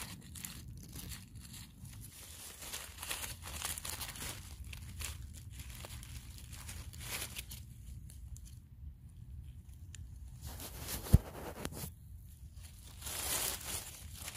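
Fallen leaves rustling and crinkling in short, irregular scrapes as gloved hands dig through leaf litter around a mushroom. A single sharp click about eleven seconds in is the loudest sound.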